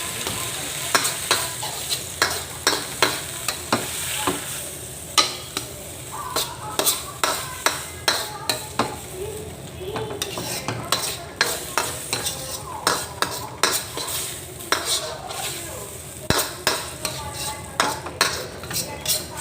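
A spatula stirring a vegetable stir-fry in a pan, knocking and scraping the pan about once or twice a second, over a steady sizzle of the frying food.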